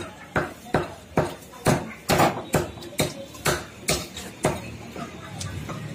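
A heavy knife chopping through raw chickens on a steel tray: sharp, regular chops about two to three a second, thinning out near the end.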